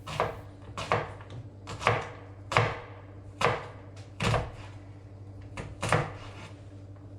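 Kitchen knife chopping shallots on a cutting board: about eight separate, unevenly spaced strokes that stop about six seconds in, over a low steady hum.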